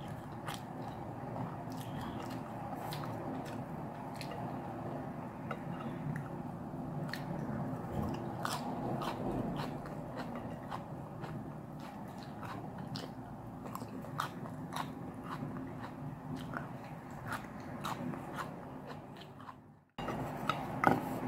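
Close-up chewing and mouth sounds of a person eating, with many small, irregular wet clicks and smacks over a steady low rumble of chewing. Near the end the sound drops away to a moment of silence, then the chewing resumes.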